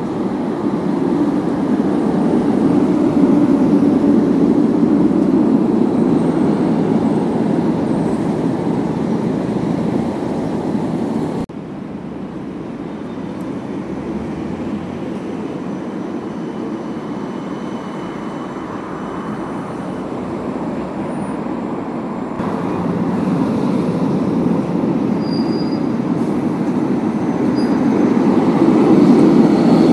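City trams running on street track: a steady low rolling and running noise of wheels on rails and traction motors. It swells as a tram draws near in the first seconds, drops suddenly at a cut about a third of the way in, and builds again to its loudest near the end as a tram passes close.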